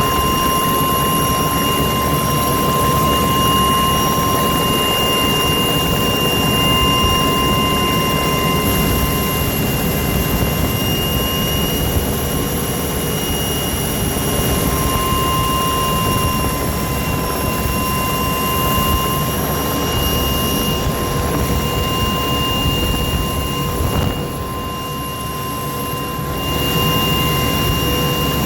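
Aircraft engine running steadily, a continuous rushing drone with a steady high whine over it, briefly quieter about three-quarters of the way through.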